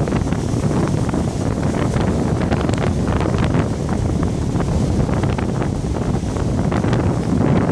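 Wind buffeting the microphone, a loud, steady rumble, with lake waves washing and splashing against the breakwater rocks underneath.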